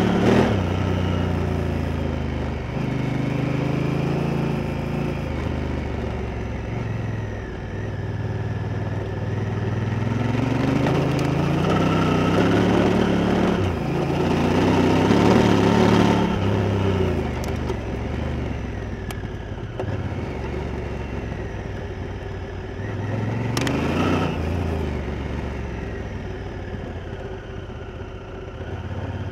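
Honda Africa Twin's parallel-twin engine under way, heard close through an engine-mounted microphone. The revs rise and fall several times as the bike accelerates and slows, with a quick sharp jump in revs about three-quarters of the way through.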